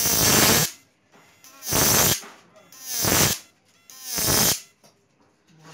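High-voltage arcing from a homemade 12-transistor analog inverter (12 V in, electric-fishing shocker) as its output is test-fired against a metal plate: four short buzzing bursts about a second and a quarter apart, each under a second long.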